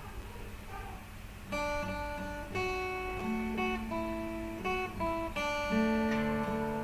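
Acoustic guitar playing a song's opening chords, starting about a second and a half in and changing chord every second or so.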